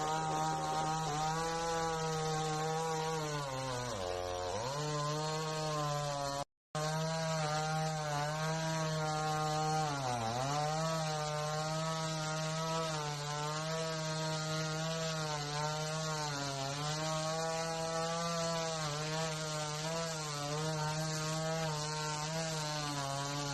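Two-stroke chainsaw running at high revs, its pitch sagging sharply and recovering twice as the chain bites into the wood of a fallen tree. The sound drops out briefly at an edit.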